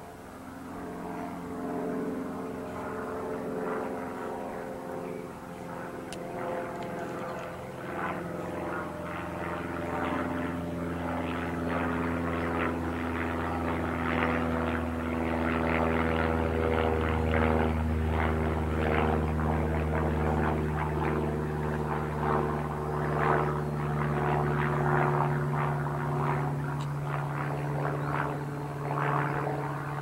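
Propeller aircraft flying over, its engine drone growing louder towards the middle and staying loud, its pitch sliding slowly down as it passes.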